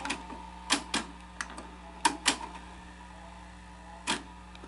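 Sony SL-HF350 Betamax VCR's tape transport clicking and clunking as it is switched between modes after fast forward and rewind: about seven short, sharp mechanical clicks, irregularly spaced, over a low steady hum.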